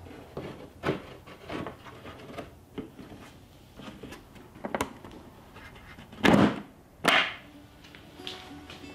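3D-printed plastic canopy being handled and seated on the model aircraft's fuselage: scattered light plastic clicks and knocks, then two louder snaps about a second apart near the end as the spring-loaded canopy latch is worked.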